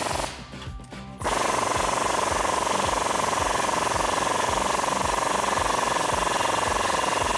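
Impact wrench hammering a 9/16-inch deep socket on an exhaust hanger-clamp nut, tightening it down. A short burst stops just after the start, and about a second in a long, steady rattling run begins, its pitch sinking slightly.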